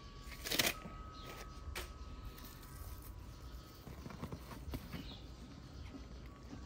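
Hands handling the PVC fabric of an inflatable boat tube while fitting a glued patch through a tear: soft scuffing and rustling, with one brief louder rustle about half a second in.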